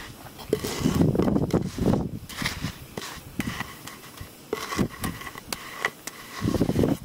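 A wooden screed board scraping across wet, freshly poured concrete in a back-and-forth sawing motion, levelling the slab. The strokes are uneven, loudest about a second in and again near the end.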